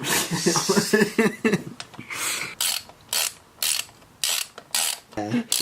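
A socket ratchet wrench worked in short back-and-forth strokes, about two rasping clicks a second, as bolts are run in on the engine. It is preceded by a brief voice-like sound in the first second and a half.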